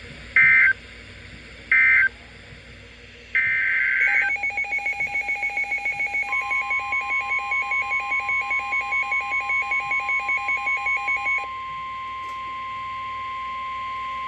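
NOAA Weather Radio alert tones: short screeching bursts of SAME digital data about a second apart, then a longer burst about three seconds in. Rapid two-pitch beeping follows for about seven seconds. About six seconds in, the steady 1050 Hz weather radio warning alarm tone starts and keeps sounding after the beeping stops.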